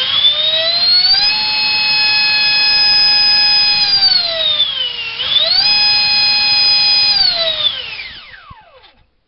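Electric ducted fan (65 mm, driven by a GoolRC 2958 4200kv inrunner motor on 4S) running at full throttle with a high whine. It eases off and dips in pitch about four seconds in, throttles back up to full about a second later and holds, then spools down and stops near the end.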